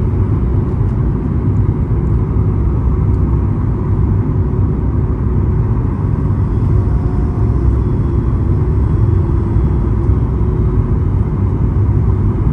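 Steady cabin noise inside a Boeing 737 MAX 9 descending on final approach: a low, even rumble of engines and airflow with a faint steady hum.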